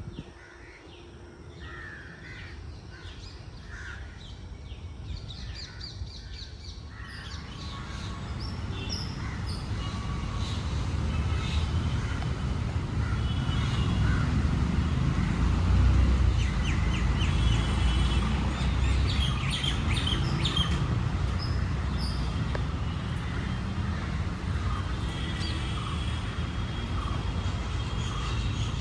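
Park birds calling and chirping, with calls scattered all through. A low rumble builds from several seconds in, peaks midway and then holds steady under the birdsong.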